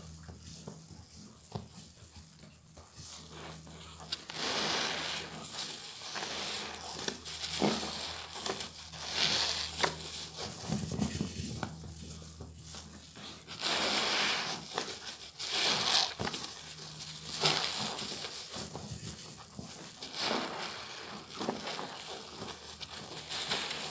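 A soap-soaked sponge squeezed by hand in thick foam: repeated wet squeezes every second or two, each a hiss of suds with many small pops.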